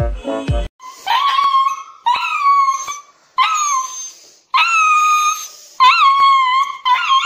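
Husky-type dog howling and crying as it is held for an injection: six drawn-out, high-pitched, wavering cries, each about a second long with short breaks between. A brief bit of piano music ends just before the first cry.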